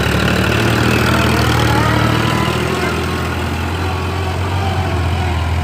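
Sonalika RX 35 tractor's diesel engine running steadily.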